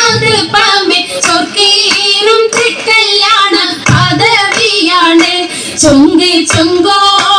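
A high, young female voice singing a Mappila-style Oppana song, with percussive beats running under the melody.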